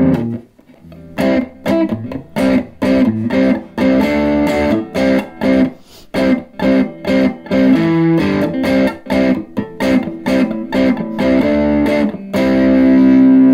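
Line 6 Variax electric guitar through an amplifier with the gain at about 6 of 10 and the master volume low, giving a crunchy overdriven tone from the driven preamp. It plays a choppy riff of short, clipped chords and notes, then a held chord near the end.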